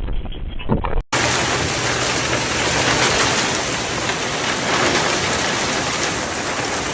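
Heavy rain falling in a storm, a dense steady hiss. It follows an abrupt cut from about a second of muffled low wind rumble.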